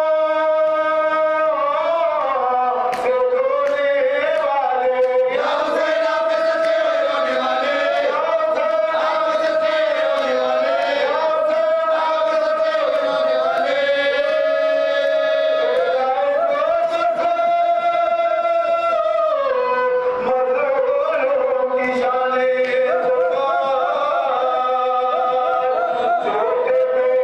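Male voices chanting a marsiya (Urdu elegy for Ali Asghar), unaccompanied: a lead reciter sings long held notes that step up and down in pitch, with other men's voices joining in.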